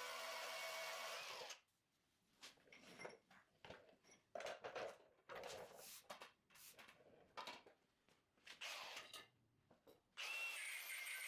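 A handheld power tool cleaning rust off a steel truck frame. It runs steadily at the start and again near the end, with short irregular bursts in between.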